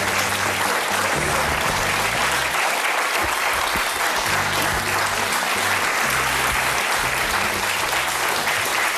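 Studio audience applauding steadily, with a low bass line of background music underneath.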